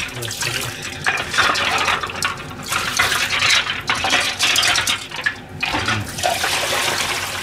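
Dishes being washed in a stainless-steel sink: water splashing in irregular bursts while ceramic bowls and plates clink against each other and the steel basin as they are rinsed and stacked.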